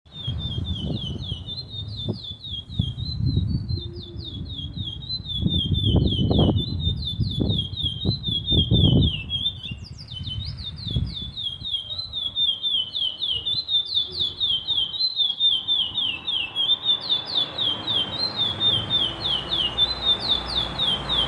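A caged songbird singing a long, unbroken song of rapid, repeated short high notes, with low thumps and rumbling through the first half.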